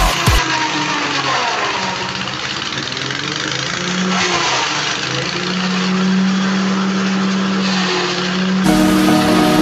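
Grass chopper driven by a small engine, running steadily while stalks and leaves are fed in and chopped, the engine note wavering and dipping under the load. Background music comes in near the end.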